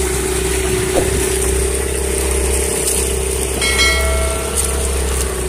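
Small 15 hp outboard motor running steadily as it drives a wooden outrigger boat, over a continuous rush of water and wind. A short electronic chime sounds about four seconds in.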